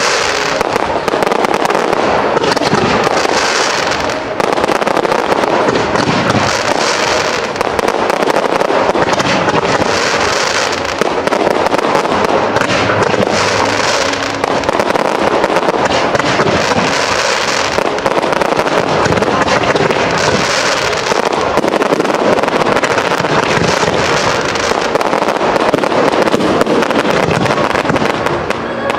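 Fireworks display finale-style barrage: a dense, unbroken run of shell bangs and crackling, with waves of sharper crackle returning every three to four seconds.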